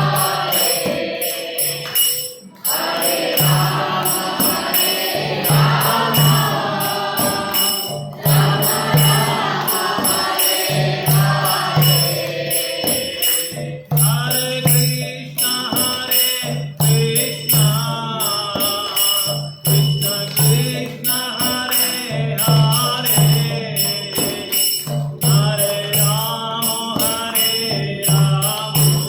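Devotional group chanting in call-and-response style, led by a singer and accompanied by jingling hand cymbals on a steady beat.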